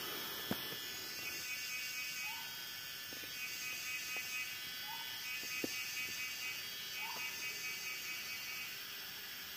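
Steady, dense insect drone of a forest, with a short call near the middle of the pitch range repeating three times, about every two and a half seconds, and a few faint clicks.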